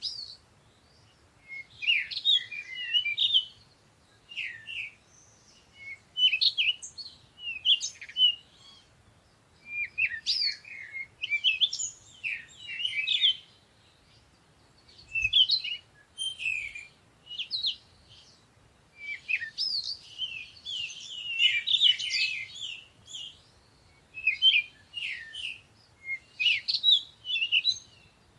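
Songbirds chirping in the morning: clusters of quick, high twittering notes come every couple of seconds, with short quiet pauses between them.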